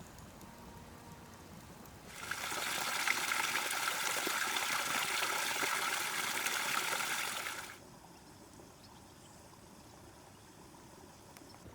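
Liquid pouring in a steady stream for about five seconds, starting about two seconds in and cutting off sharply.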